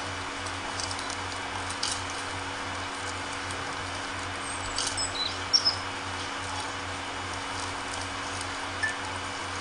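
Hushed praying crowd outdoors: a steady hiss with a low hum, scattered small clicks and rustles, and a few short high chirps about five seconds in.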